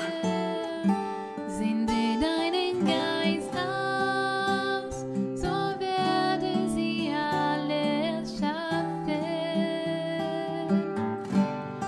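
A woman singing a worship song into a microphone, accompanied by a strummed acoustic guitar.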